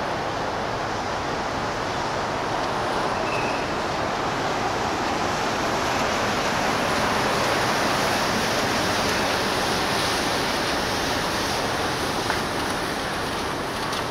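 Steady rushing noise from the MSC Bellissima cruise ship passing close by, its churning water and machinery swelling a little as it draws nearest and then easing off.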